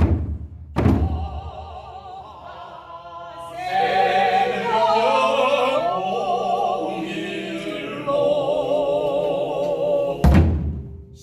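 Korean barrel drum (buk) struck twice, then a long chanted voice line with a wide, wavering vibrato, and another drum stroke near the end.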